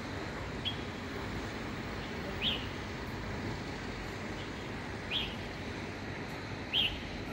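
A small bird chirping four times, short high chirps a couple of seconds apart, over a steady hum of distant city traffic.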